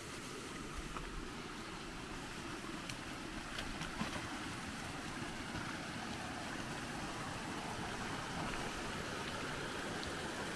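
Runoff water flowing and splashing over rocks into a swale: a steady rushing that grows a little louder over the second half.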